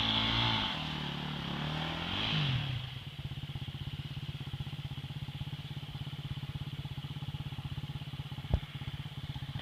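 Off-road motorcycle engine revving, its pitch dropping and then rising again, before it settles about three seconds in to a steady, even idle. A single sharp click comes near the end.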